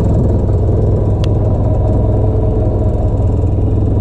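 A fishing boat's engine running steadily with a deep, even rumble.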